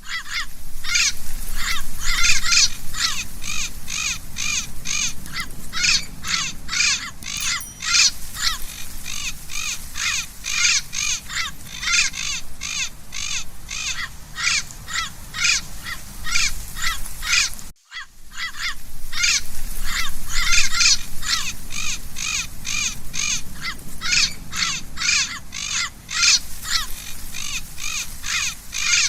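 Parrot giving a long run of harsh, repeated calls, about two or three a second, with a brief break about two-thirds of the way through before the calls resume.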